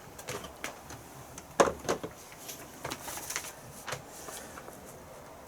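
Plastic steamer baskets and rice bowl being handled and fitted together: a few light knocks and clatters, the loudest about a second and a half in.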